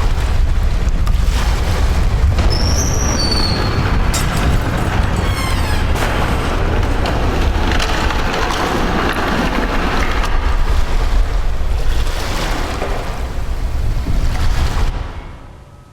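Loud low rumbling and grinding of a ship's steel hull scraping along an iceberg, with a few short high squeals about three seconds in; it fades out near the end.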